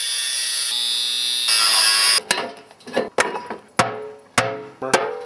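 Angle grinder cutting into the stove's metal, a loud steady grinding that shifts pitch as the load changes and stops about two seconds in. It is followed by about six separate hammer blows on the stove's metal body, some ringing briefly.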